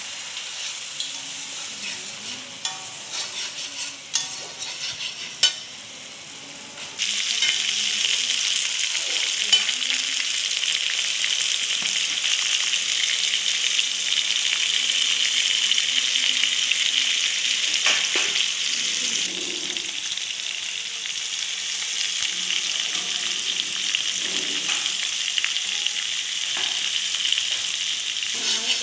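A spiced curry is stirred with a spatula in a kadai over a softer sizzle, with scattered scraping clicks. About seven seconds in, a much louder, steady sizzle sets in abruptly as potato chunks fry in hot oil, with a few more spatula clicks later.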